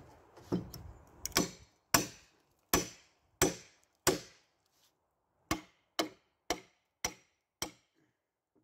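Claw hammer striking a salvaged wooden fence board to knock out its nails: about ten sharp blows with a slight metallic ring, in two runs of five separated by a short pause.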